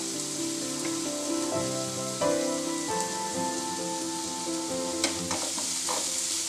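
Grated carrot and onions sizzling in hot oil in a frying pan, stirred with a plastic ladle, with a few sharp clicks of the ladle against the pan from about five seconds in. Background instrumental music with held notes plays over it.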